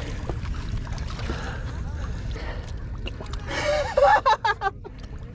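Steady low rumble of wind and water lapping at shoreline rocks as a sturgeon is landed by hand. About three and a half seconds in, a man's voice calls out in a short excited burst.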